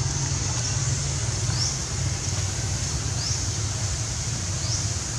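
Steady low rumble of wind on the microphone, with three short, high rising chirps about a second and a half apart.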